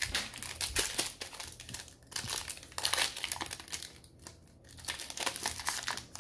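Foil wrapper of a Pokémon Sword and Shield booster pack crinkling in the hands and being torn open. The crackle comes in spurts, with short lulls about two seconds in and again around four seconds.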